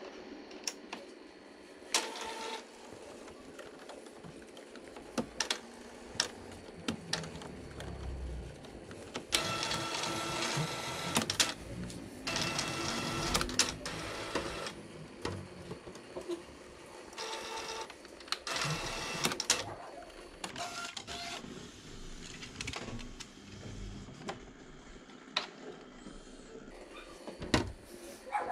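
Epson L805 inkjet printer going through its power-on start-up cycle: scattered clicks, with three longer stretches of motor whirring and mechanical rattling around the middle.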